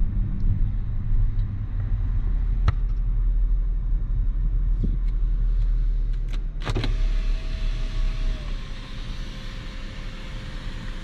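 Car cabin with steady engine and road rumble while driving, a sharp click about six and a half seconds in as the overhead console button is pressed, then the electric sunroof shade's motor running with a steady whine that dips a little in pitch about a second and a half later.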